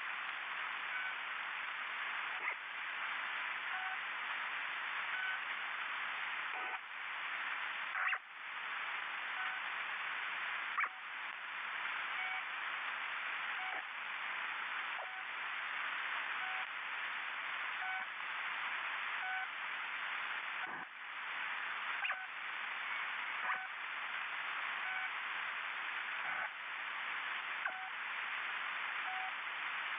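Steady hiss of static, cut off above the middle of the range like a weak radio signal, with short faint beeps at a few different pitches recurring every second or two. A few brief clicks and dropouts break it, one near eight seconds in and another about two-thirds of the way through.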